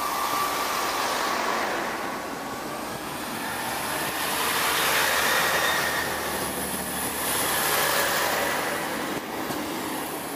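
Arriva Trains Wales Class 158 diesel multiple units pulling out of the platform, engines running and wheels rolling on the rails as the carriages pass. The noise swells about five seconds in and again near eight seconds, with faint whining tones over it.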